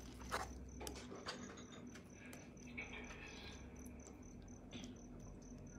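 Metal spoon clinking and scraping in a metal bowl a few times, quietly, with three light clicks in the first second and a half and another near the end.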